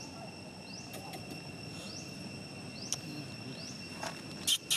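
Outdoor insect chorus with a steady high-pitched drone. A short rising chirp repeats about once a second, with a few faint clicks, and a brief loud burst of noise comes near the end.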